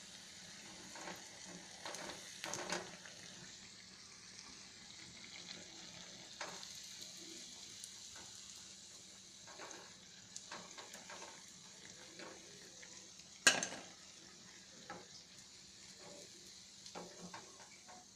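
Punugu batter fritters deep-frying in hot oil, a steady sizzle, with a steel slotted spoon knocking and scraping against the pan as the browned fritters are turned and lifted out. One sharp clink a little past the middle is the loudest sound.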